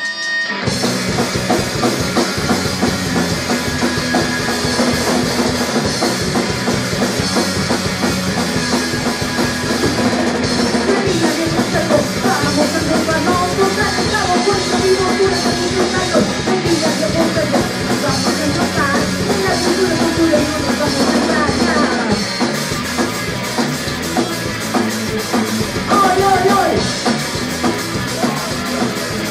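Live punk rock band playing loud, with drum kit, electric guitar and bass, and a woman singing into the microphone. The full band comes in about half a second in.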